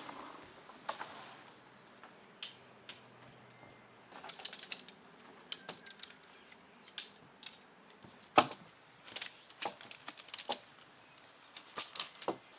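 Irregular light clicks and knocks, some in quick clusters and one sharper knock about eight seconds in, like small objects being handled and set down.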